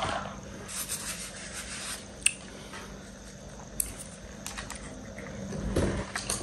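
Close handling noise: a few sharp clicks and light rubbing and rustling over a faint steady hum.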